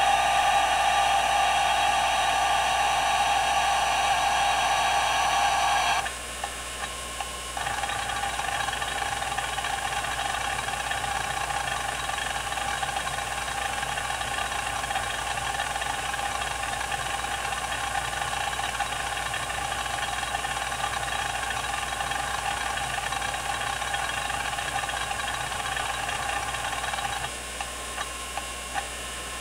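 IBM 0665-53 5.25-inch MFM hard drive running a benchmark, its heads seeking rapidly over the spinning platters with a loud, steady buzz. About six seconds in the seeking stops for a second and a half, leaving a quieter spindle hum with a few single head clicks, then resumes; it stops again near the end.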